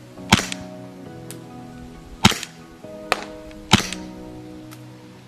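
Poseidon FMG-9 gas blowback airsoft replica fired in semi-auto: four single sharp shots at uneven spacing, each a crack of gas with the slide cycling. Steady background music plays under the shots.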